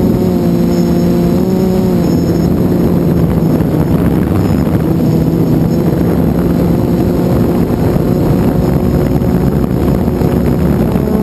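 Quadcopter's electric motors and propellers running with a steady whine, picked up by the onboard camera. The pitch steps down slightly about two seconds in, and a rushing noise grows as it flies fast and low over the grass.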